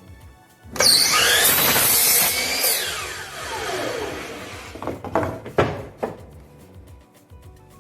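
Power saw cutting through a wooden fence board, about two seconds of loud cutting, then the blade spinning down with a falling whine. A few sharp wooden knocks follow near the end.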